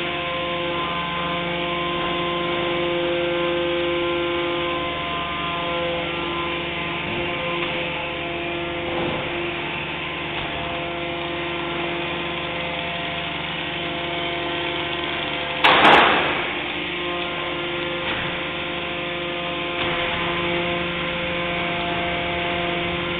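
Recycling sorting plant machinery running steadily with a layered mechanical hum. A sudden loud crash of noise cuts in about two-thirds of the way through and dies away within a second.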